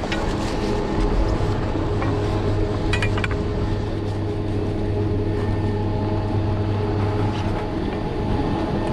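Ski chairlift loading-terminal machinery running: a steady hum with several held tones, and a few light clicks about three seconds in.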